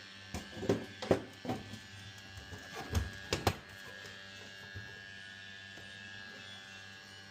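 Vaillant gas boiler running with a steady electric hum and tone, its fan or pump. Over the first few seconds there is a run of sharp clicks and knocks, with the hum continuing alone afterwards.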